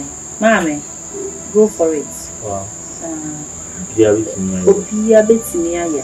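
Night insects trilling: a steady, unbroken high-pitched drone under a woman's speech.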